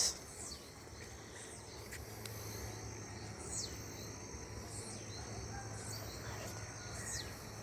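Chorus of small frogs and insects calling steadily in a high, even trill, with a few brief descending calls.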